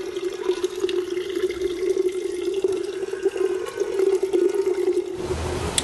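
A thin stream of water pouring and splashing into a partly filled terracotta pot, with a steady hollow note from the pot, as the base of a traditional steamer is filled. The pour stops about five seconds in, followed by a short sharp click near the end.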